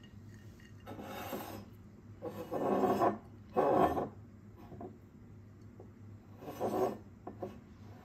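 A glass bottle scraping and sliding on a stone countertop as it is turned and set down, in four short rasping bursts with a few light ticks near the end.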